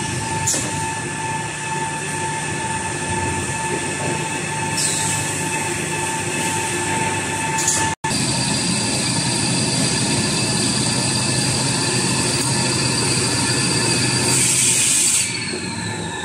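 Toilet paper converting line running: the log saw and roll conveyors make a steady machine drone with a constant whine. A sharp hiss with a falling squeal comes several times, with a longer one near the end, and the sound breaks off for an instant about halfway.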